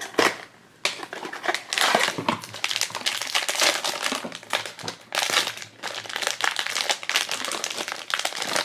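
A short sharp snap at the start, then a foil blind-box bag crinkling steadily in the hands as it is pulled from its cardboard box and torn open.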